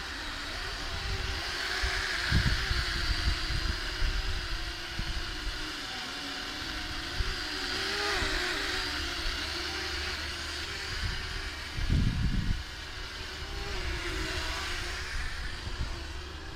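DEERC D20 mini quadcopter flying, its small motors and propellers giving a buzzing whine whose several pitches rise and fall as it manoeuvres. Low rumbling bursts come about two and twelve seconds in.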